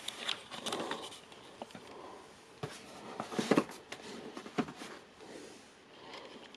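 Camera accessories and their packaging handled on a table: scattered light clicks and rustles, with a louder cluster of knocks about three and a half seconds in.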